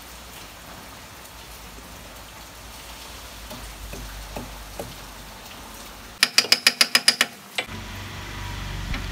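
A steady low background hiss, then, about six seconds in, a quick run of about ten sharp clicks at roughly eight a second, lasting a second and a half: a ratchet wrench being worked on the new double-belt engine pulley as it is fitted.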